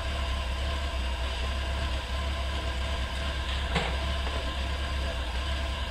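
An engine idling steadily with a low hum, and a single short knock a little past the middle.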